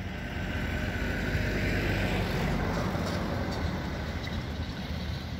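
Airbus A318-111 jet airliner on final approach, heard from a distance: a steady engine rumble with a rushing hiss that grows louder over the first two seconds and then eases slightly.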